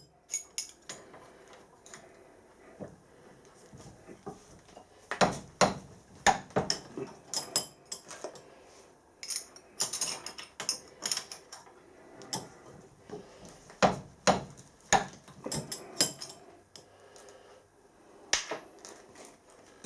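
Irregular clinks, taps and knocks of small metal parts and hand tools being handled on a workbench, in scattered clusters.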